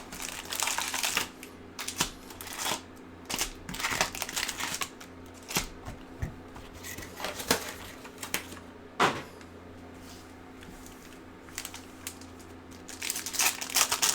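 Trading card box and foil packs being handled and opened: irregular rustling of wrappers and cardboard with short clicks, a sharp click about nine seconds in and a flurry of rustling near the end. A faint steady hum runs underneath.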